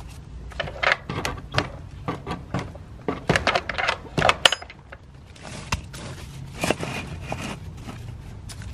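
Loose gravel clattering and scraping as pebbles are pushed and scooped by a gloved hand, in an irregular run of clicks and rattles.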